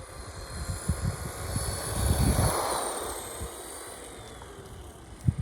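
Electric RC car's motor whining with tyre rumble as it drives. The sound swells and the whine bends up and then down about two to three seconds in as the car passes close. A short knock comes near the end.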